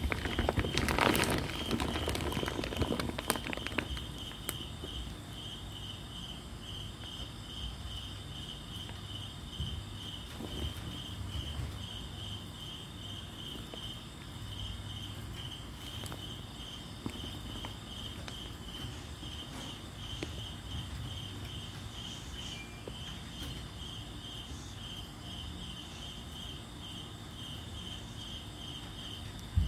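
A cricket chirping steadily, about two short chirps a second at one high pitch, over a low steady hum. A burst of rustling noise comes about a second in and fades within a few seconds.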